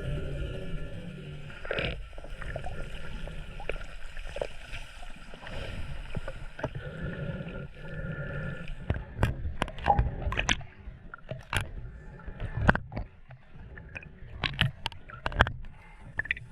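Shallow sea water sloshing and gurgling around someone wading or moving through it, with irregular sharp splashes and clicks in the second half.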